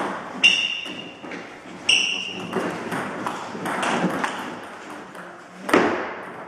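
Table tennis ball pinging off the table and bats, ringing and echoing in the hall. There are two ringing bounces in the first two seconds as the serve is prepared, then a rally of quicker hits, with one sharp loud hit near the end.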